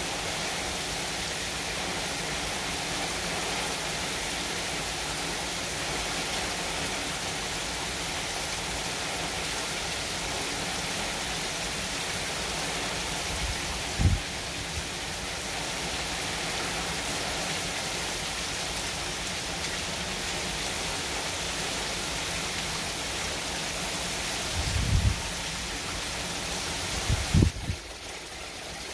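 Heavy hurricane rain pouring down in a steady, dense hiss on pavement and roofs. Three brief low thumps break through: one about halfway and two near the end.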